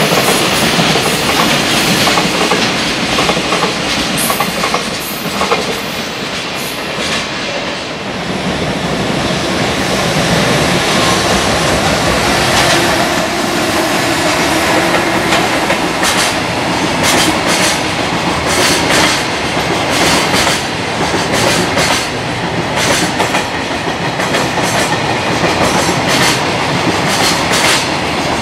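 A long JR Freight container train running through at speed. Its wheels clatter over the rail joints in a rhythmic clickety-clack that grows sharper and more distinct in the second half as the container wagons pass close by, over a steady rumble.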